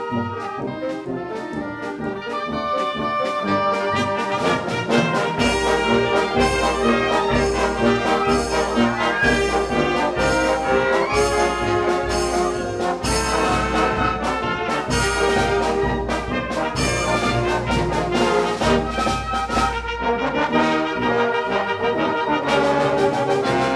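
Wind band playing: clarinets, flutes and brass in full harmony, with a steady low beat entering about five seconds in, after which the band plays louder.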